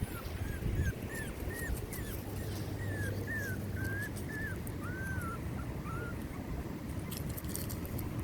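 Pomeranian puppy whimpering in a string of short, high squeaks, about two a second, that stop about six seconds in, over a low rumble. A few faint clicks come near the end.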